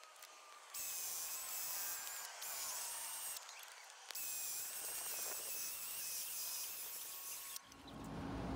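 Cordless drill boring into concrete, a high motor whine with a grinding hiss. It stops and starts again three times, briefly about half a second in, around two seconds and near three and a half seconds, then runs on. Near the end a lower, steady rumble takes over.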